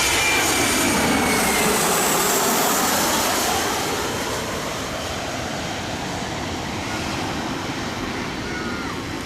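Airplane passing low overhead as it comes in to land: loud engine noise with a high whine that falls slightly in pitch, easing off after about four seconds.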